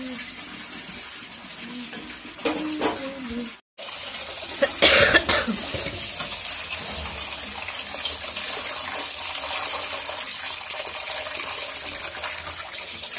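Tap water running steadily into a stainless-steel bowl of boiled tripe pieces as they are rinsed, starting after a sudden cut about four seconds in. A short loud burst sounds about a second after the water starts.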